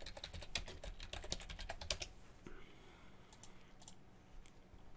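Computer keyboard typing: a quick run of keystrokes for about two seconds, thinning to a few scattered clicks after that.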